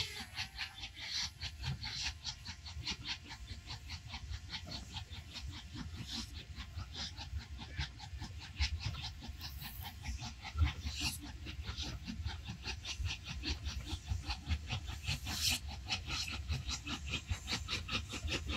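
ÖBB class 93 steam tank locomotive working hard under way, its exhaust beating in rapid, even chuffs, several a second.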